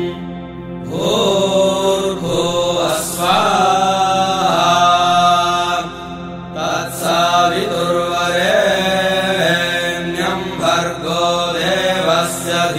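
A voice chanting a Vedic mantra in Sanskrit in long melodic phrases over a steady drone accompaniment.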